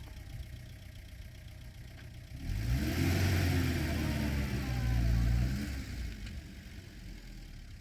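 A motor vehicle drives past, its engine and tyre noise swelling from about two and a half seconds in and fading away by about six seconds, over a low steady engine hum.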